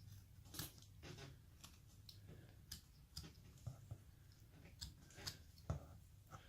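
Faint, irregular clicks and scrapes of a hand carving tool paring small cuts in basswood, over a low steady room hum.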